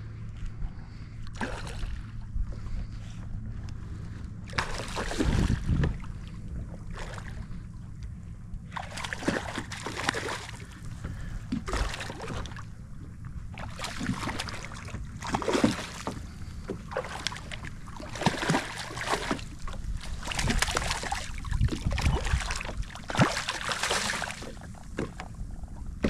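Hooked fish thrashing and splashing at the surface beside a flats skiff, in repeated bursts of a second or two, over steady wind noise.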